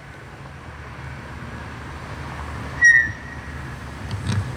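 Low, steady hum of parked cars' engines idling, with a short, sharp high-pitched chirp about three seconds in.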